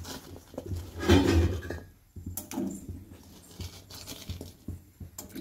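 Small siru kizhangu tubers dropped by hand into hot water in an aluminium pressure cooker: a few irregular splashes and knocks against the pot, the loudest about a second in.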